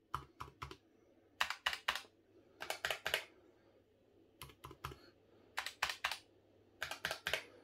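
H key on Razer Huntsman optical-switch keyboards being pressed repeatedly: six short bursts of about three quick key clicks each, with pauses between the bursts.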